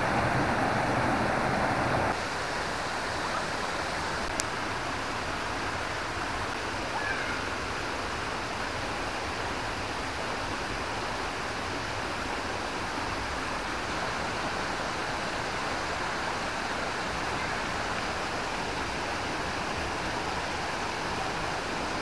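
Steady rush of a small waterfall cascading over rocks into a stream pool. It is a little louder for the first two seconds, then settles slightly softer, with one faint click about four seconds in.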